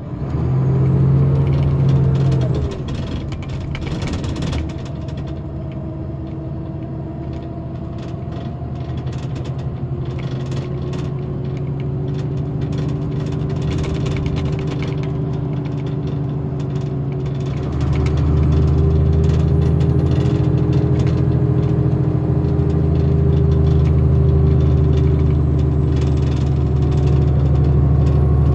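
Engine and road noise heard from inside a 2008 VDL Bova Futura FHD120-365 coach on the move: a steady drone with light rattles. There is a brief louder swell near the start. About 18 seconds in, the engine's low note grows louder and stays up.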